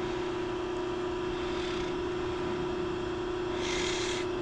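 Steady machine hum holding one even tone, with a short hiss about three and a half seconds in.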